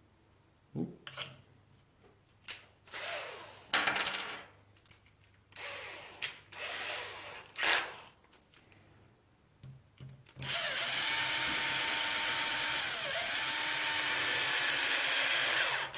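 Small parts handled with scattered clicks and rustles, then a cordless electric screwdriver runs steadily for about five seconds, driving a mounting screw into the RC truck's chassis, its pitch dipping briefly partway through.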